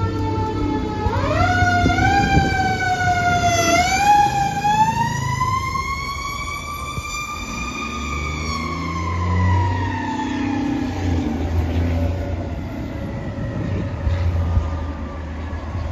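Siren on a 1981 Mack CF aerial tower fire truck. It rises sharply in pitch about a second in, wavers, climbs to a peak around the middle, then winds slowly down in pitch. A heavy truck engine runs low underneath.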